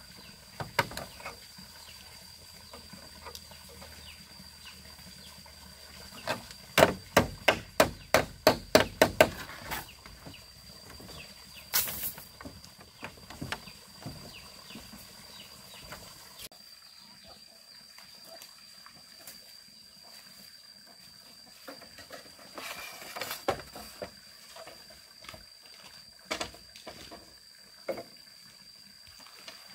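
A hand tool striking wood in a quick run of about ten sharp blows, about three a second, a few seconds in, then a few scattered single knocks. A steady high-pitched whine runs underneath.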